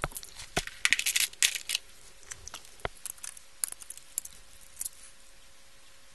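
Handling noise as a black insulating sheet is laid over an LCD monitor's exposed power supply board: a quick flurry of rustles and light clicks, then a few scattered ticks that stop about five seconds in.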